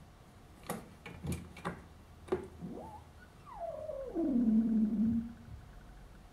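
Cat shut in a plastic pet carrier yowling: a short rising call about three seconds in, then one long falling yowl, the loudest part. A few sharp knocks come before it.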